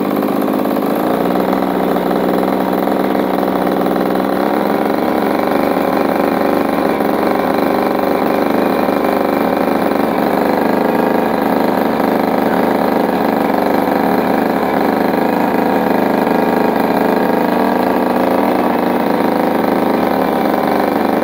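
Small two-stroke petrol engine of a DIY RC helicopter running steadily while the model stays on the ground, its note shifting slightly about four seconds in.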